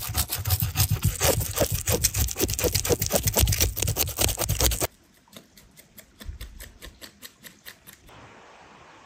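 Knife blade scraping scales off a large raw fish on a wooden cutting board, in rapid rasping strokes several a second. About five seconds in it drops suddenly to fainter, sparser scraping, and near the end only a faint steady hush remains.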